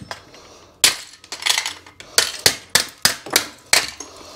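Hammer blows cracking apart a plastic surface-mounted socket back box on a wall: about eight sharp strikes, at roughly three a second, starting about a second in.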